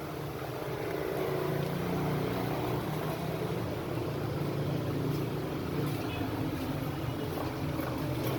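A steady low mechanical drone, like a motor running, with a few faint clicks in the second half.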